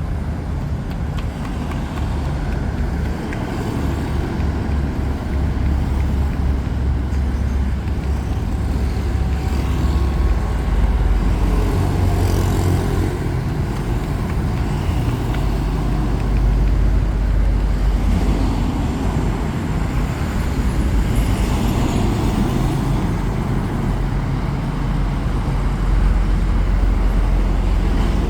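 Road traffic noise: a steady low rumble of passing motor vehicles.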